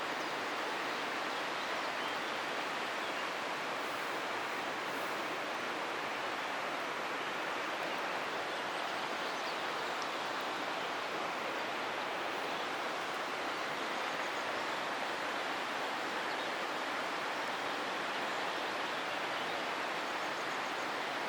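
Flowing water of a stream rushing steadily, an even unbroken hiss.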